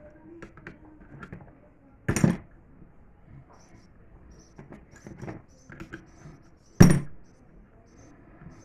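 Two loud, sharp knocks, about two seconds in and again near the end, among light clicks and rattles of hard objects being handled.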